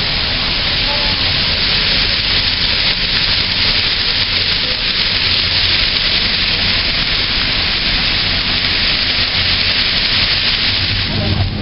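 Steady hiss of air-handling machinery serving a tent, with a low hum underneath.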